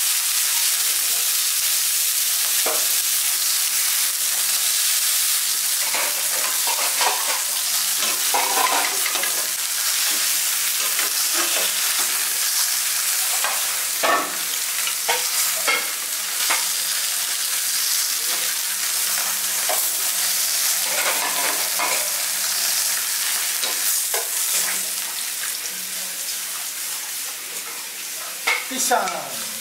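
Flour-coated torpedo scad frying in hot oil in a wok, sizzling steadily, with a metal spatula scraping and clicking against the pan as the fish are turned and lifted.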